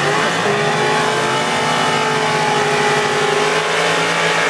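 Drag racing car's engine held at high revs, a loud, steady note with a wide haze of noise over it.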